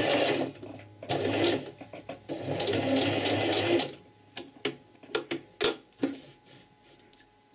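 Electric sewing machine stitching in three short runs, stopping and starting: a back-and-forth reinforcing backstitch at a pocket opening. It stops about four seconds in, and only a few light clicks follow.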